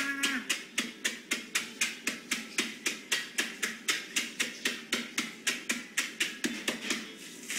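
Spatula handle pounding a dry, crumbly food inside a zip-top plastic bag on a table, crushing it to crumbs. Steady, rapid knocks, about four a second.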